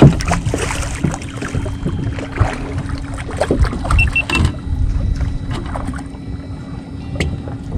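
Boat noise: a steady low hum under a rumble with repeated knocks and bumps, which die down about halfway through. Three short electronic beeps come just before the knocking stops.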